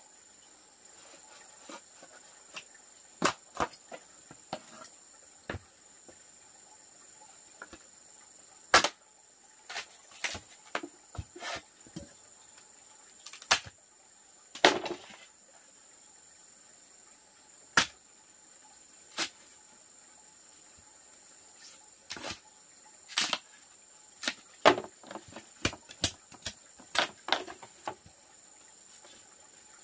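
Machete chopping and splitting thick bamboo culms: irregular sharp knocks and cracks of the blade and splitting cane, coming in bunches and quickening near the end. A steady high insect drone, like crickets, runs behind.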